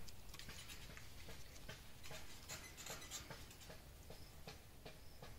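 Faint, irregular small clicks and ticks, a few a second, over quiet background noise.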